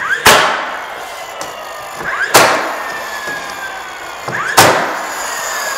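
DeWalt cordless 15-gauge angled finish nailer firing three times, about two seconds apart, driving 2.5-inch nails through pine into a stud. Each shot is a short rising whir, a sharp crack, then a falling whine as the flywheel winds down.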